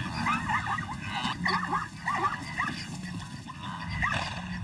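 Animal calls: a quick run of short yelping calls that rise and fall in pitch, several a second, over a low steady rumble.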